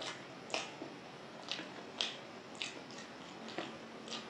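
A person chewing a mouthful of rice and dal with the mouth close to the microphone, with wet smacks about twice a second.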